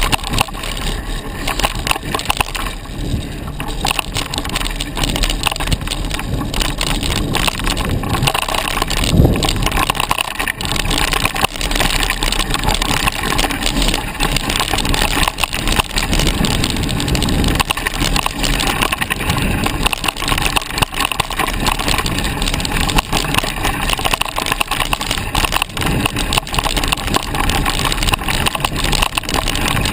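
Mountain bike riding fast over a dirt woodland singletrack: continuous tyre noise and rattling of the bike, with twigs and dry debris crunching under the tyres. A sharp knock stands out about nine seconds in.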